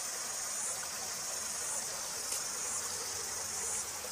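A steady, high-pitched insect chorus over a faint even hiss.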